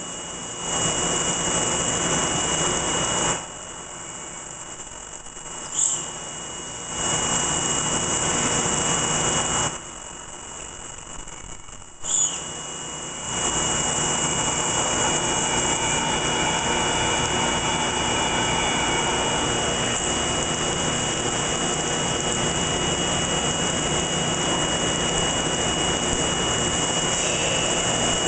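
A machining center's multi-axis head drilling dowel holes in hard steel with a through-coolant drill, run at half speed and feed. It gives a loud, steady hiss of cutting and coolant spray over a thin high whine. The hiss drops away twice for about two seconds, each dip ending in a short sharp burst, then comes back and holds steady through the second half.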